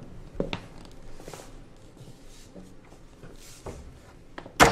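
Faint scattered clicks and rustles, then one sharp loud knock near the end.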